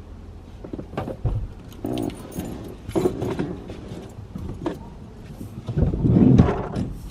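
Handling noise in a car: scattered light clicks, taps and rattles with keys jangling, and a louder rustle about six seconds in.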